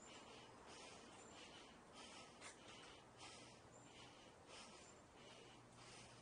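Faint, rhythmic breathing of a person climbing a long flight of outdoor steps, even huffs about twice a second, with a few brief faint high chirps.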